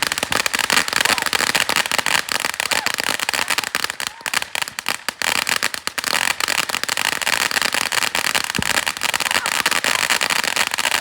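Fireworks crackling: a dense, rapid run of sharp pops that goes on without a break.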